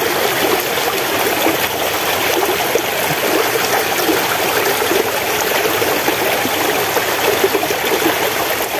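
Small stream running steadily, a close trickling and babbling of water.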